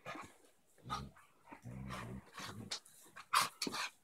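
Dogs play-fighting, giving short low growls, with a short sharp louder sound near the end.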